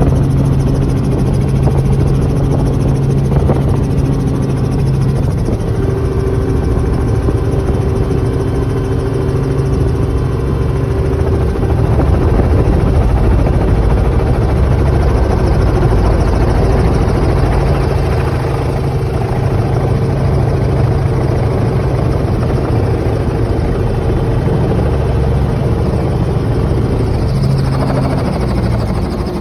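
Helicopter cabin noise in flight: a loud, steady drone of engine and rotor with a constant low hum.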